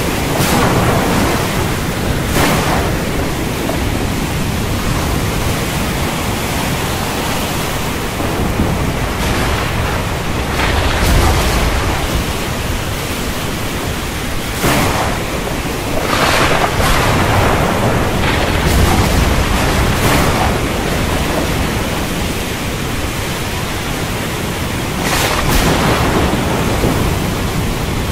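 Thunderstorm: a steady, loud rushing storm noise, with deep rolls of thunder swelling up several times, the heaviest about eleven and nineteen seconds in.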